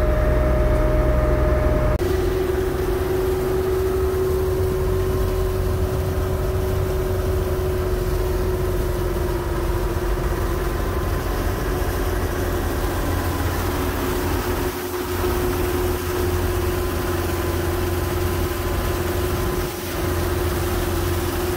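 Sherp amphibious ATV's diesel engine running steadily, a low drone with a steady whine over it. The whine drops abruptly in pitch about two seconds in.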